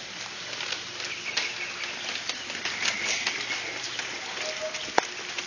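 Light rain falling steadily, a soft hiss with scattered drip ticks, over rain-soaked ground and standing water. One sharp click stands out near the end.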